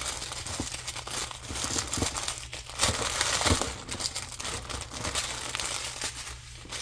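Small plastic packets of diamond-painting drills crinkling and rustling as they are handled and gathered up, with short crackles throughout, loudest a little past the middle.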